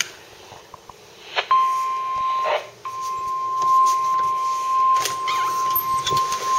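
A weather scanner (NOAA weather radio) sounds its warning alarm tone: one steady, high-pitched beep that starts about a second and a half in, drops out briefly and then holds on. The tone signals that a severe weather warning message is about to be broadcast.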